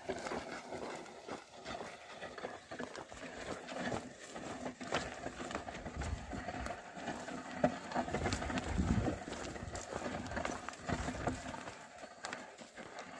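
Oxen working a field under the plough: irregular hoof steps and knocks, with a low rumble about midway.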